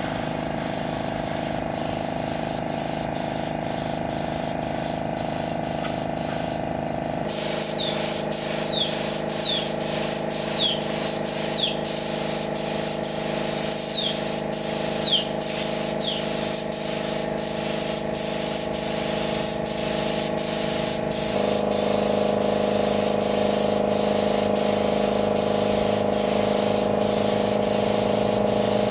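A motor running steadily under a continuous hiss, with an even run of sharp ticks. The motor's pitch shifts slightly twice, and a handful of short, high, falling chirps come through the middle.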